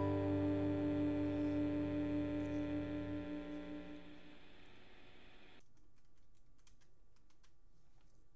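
A held guitar chord from the background music rings out and fades away over the first four seconds or so. After that come faint, irregular little clicks and scratches of a pen drawing on paper.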